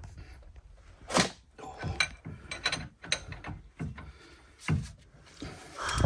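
Irregular knocks and clinks of hand tools and metal parts being handled during suspension removal, about a dozen short hits at uneven spacing with the loudest knock near the end.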